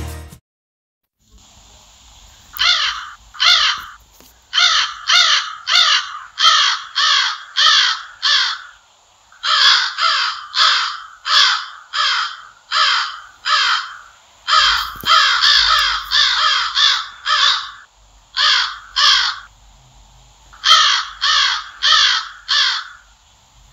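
Crow cawing over and over, in runs of several caws with short pauses between them.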